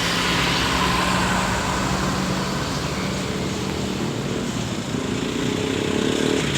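Intercity bus's diesel engine running close by over road traffic noise; the engine note rises in the last couple of seconds as it speeds up.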